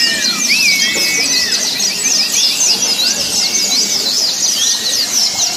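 Many white-eyes (pleci) singing and chattering at once: a dense, unbroken stream of rapid high-pitched chirps and trills, with a few longer whistles lower down in the first second or so.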